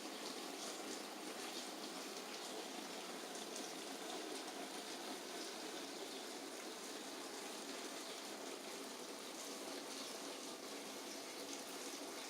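Steady rainfall, a constant hiss with faint ticks of individual drops.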